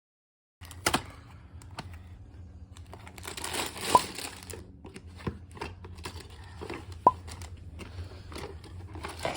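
LEGO set being unboxed: packaging crinkling and tearing, loudest in a tearing stretch about three seconds in, with scattered sharp clicks and taps of pieces being handled.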